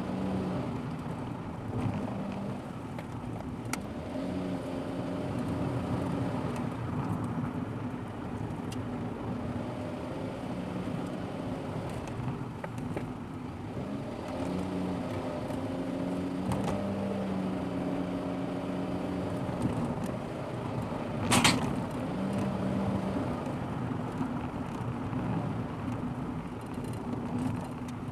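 A car's engine and tyre noise heard from inside the cabin while driving, the engine tone shifting up and down. A single sharp knock about 21 seconds in.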